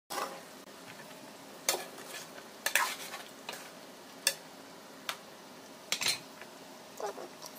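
Metal spoon stirring chicken wings and carrots in sauce in a nonstick frying pan, clinking and scraping against the pan about once a second over the steady sizzle of the cooking sauce.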